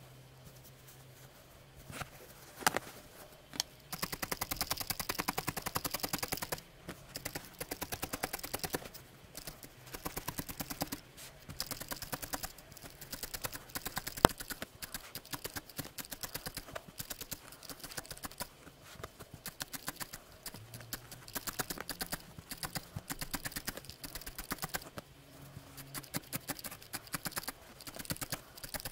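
Felting needle stabbing rapidly into a ball of wool on a burlap-covered felting pad: fast runs of light ticks, many a second, broken by short pauses. It starts about four seconds in, after a few scattered taps.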